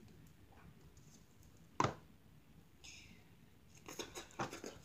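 Faint handling clicks and knocks as slime is put away in a plastic container: one sharp click about two seconds in, a brief hiss, then a quick run of clicks and knocks near the end.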